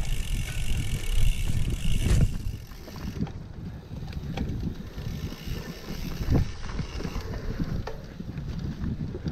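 Cyclocross bike ridden over a sandy, rutted dirt trail: tyres rumbling over the ground, with wind on the microphone and a few knocks as the bike goes over bumps. For the first two seconds the freewheel hub buzzes while the rider coasts, then stops.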